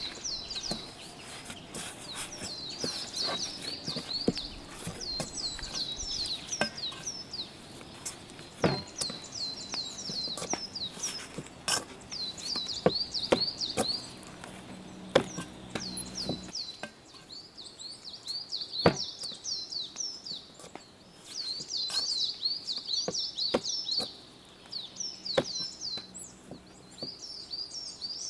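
Small birds chirping in quick repeated series of short falling notes, with scattered sharp knocks and taps as risen dough is punched down and kneaded in an aluminium bowl.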